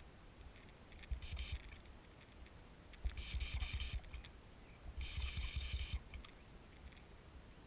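Dog whistle blown close by in three bursts of high, shrill pips: a short double pip about a second in, then two longer runs of rapid pips about two seconds apart, signalling the working spaniel.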